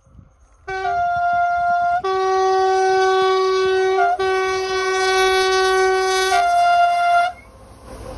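Locomotive two-tone horn blown for about six and a half seconds, switching back and forth between its high note alone and both notes sounding together, then cut off. The approaching train's running noise carries on after the horn stops.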